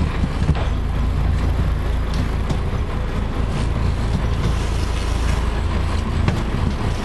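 Fishing boat's engine running steadily, a low rumble under a haze of wind and water noise.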